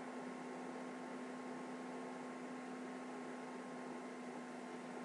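Steady electrical hum with a fainter higher tone over an even background hiss.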